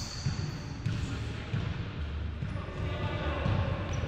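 Basketball bouncing on a hardwood gym floor, a run of low thuds, with a few short high sneaker squeaks.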